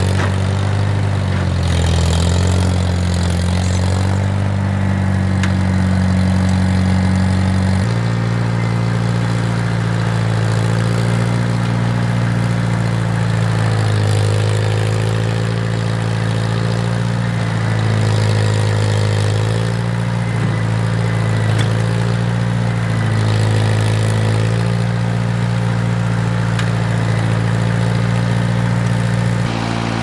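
Old tractor's engine running as it is driven and manoeuvred on snow. The engine note changes abruptly about eight seconds in, then rises and falls in speed several times.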